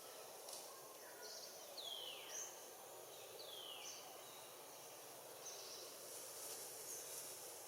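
Faint outdoor ambience: a steady hiss of insects, with a bird giving two downward-sliding whistled calls, about two seconds in and again about a second and a half later, and a few short high chirps.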